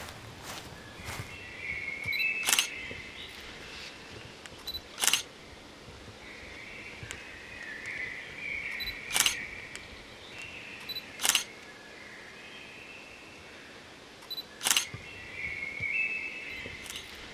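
DSLR camera shutter firing single shots every two to four seconds, some of them led by a short high beep.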